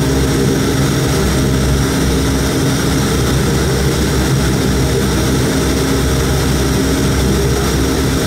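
Bombardier Dash 8 Q400's Pratt & Whitney PW150A turboprop engine and six-bladed propeller running at steady power, heard from inside the cabin beside the engine. It is a loud, unbroken drone with a low hum and several steady tones.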